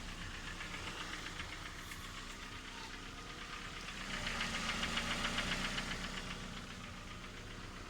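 Toyota 2AZ-FE 2.4-litre four-cylinder engine idling with a fast, steady knocking tick. The knock has an unknown cause: it persists although the timing chains, the VVT-i unit and the balance shafts have been replaced.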